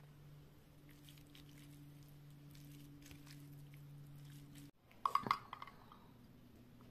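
Faint scrapes and small clicks of a metal fork stirring rice noodles and bean sprouts in a bowl, over a low steady hum that stops suddenly. About five seconds in, a louder brief clinking of a metal spoon against a glass.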